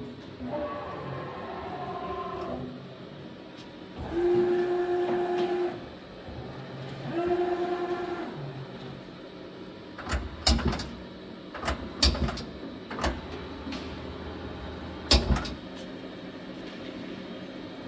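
Spinner PD CNC lathe moving its axes: the servo drives give a steady pitched whine as the tool turret traverses, twice for about a second and a half each. From about ten seconds in there is a series of sharp metallic clunks from the machine's moving parts.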